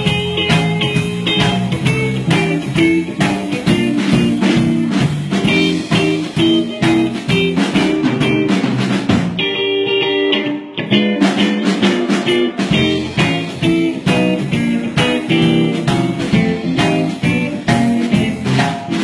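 Live blues band in an instrumental break, with electric guitar over bass and drums. The bass and drums drop out for about a second near the middle, then the band comes back in.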